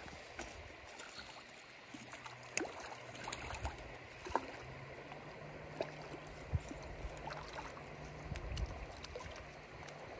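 Shallow creek water running steadily, with scattered small clicks and splashes as a hooked trout is handled at the water's edge.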